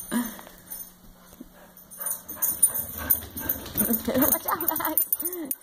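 Dogs making short, excited whining and yipping calls while chasing a toy, with scattered clicks and scuffles. The calls come mostly in the last second or so.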